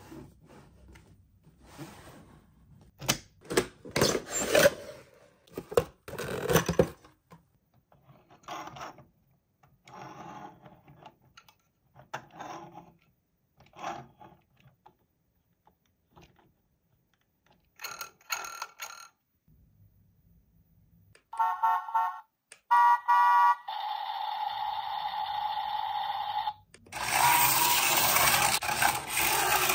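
Scattered clicks and rustles of a toy and its packaging being handled, then, about two-thirds of the way in, short bursts of electronic ringing tones, a steady electronic tone, and a louder, denser electronic sound near the end, typical of a toy's sound chip.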